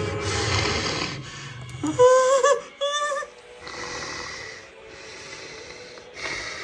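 Dragon sound effects for the ice dragon Boreal: a long rasping growl, then two short wavering shrieks about two seconds in, followed by a softer rasp.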